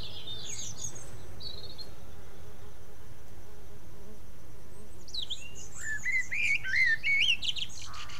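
Birds chirping outdoors: a few short high chirps at first, then from about five seconds in a bird singing a quick run of rising and falling whistled notes, over a faint steady hum.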